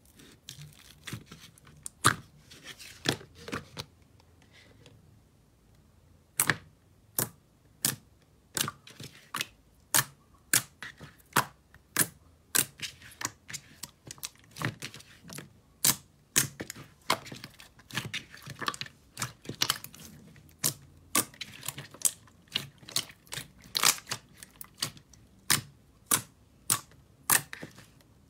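Soft pink slime being pressed and folded by fingers, making sharp clicking pops. The pops come irregularly at first, then steadily about one to two a second.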